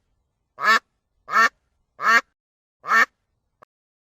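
Duck quacking: four loud, evenly spaced quacks, about one every 0.7 seconds.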